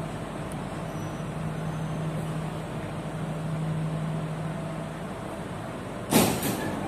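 Steady low hum inside a Jakarta MRT train car standing at a station with its doors open. About six seconds in, a sudden loud hiss lasts about half a second.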